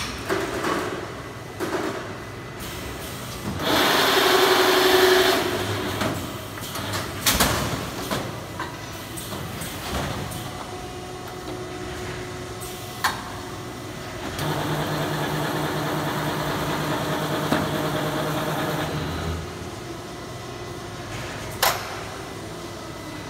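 An automatic plastic-film winder's core-loading mechanism working through a cycle. A loud rush of noise about four seconds in, a few sharp clacks, and a steady motor hum for about five seconds in the second half as a cardboard core is carried into the machine.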